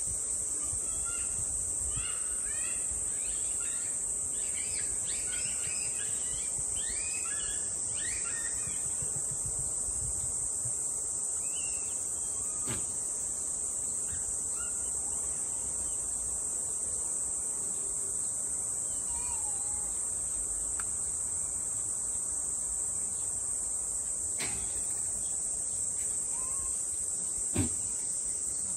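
Steady, high-pitched chirring of insects, unbroken throughout, with bird chirps over the first few seconds. A sharp knock sounds near the end.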